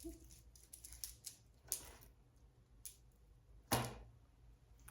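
A small pouch of stitch markers being handled and opened: scattered light clicks and rustles, with one sharper click about three and a half seconds in.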